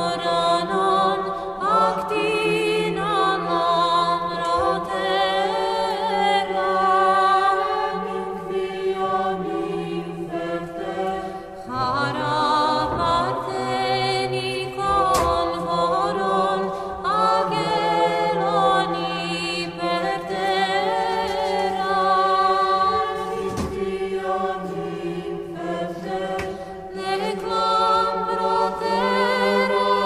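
A choir singing a slow chant, several voices holding chords with vibrato, one phrase after another.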